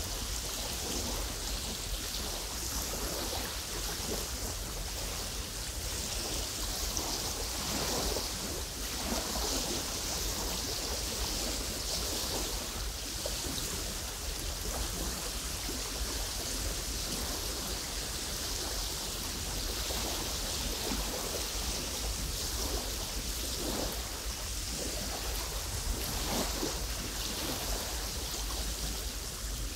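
Small lake waves lapping and splashing against the shore in irregular washes, over a steady low rumble.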